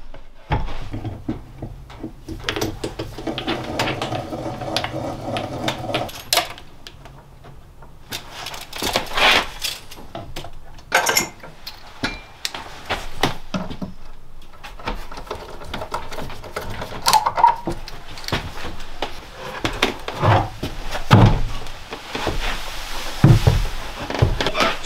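Scattered wooden knocks and clatter of things being handled and set down, with a steady hum for a few seconds near the start.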